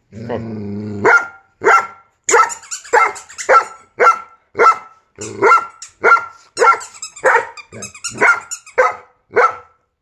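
A low, drawn-out pitched sound for about the first second, then a dog barking again and again, about two sharp barks a second.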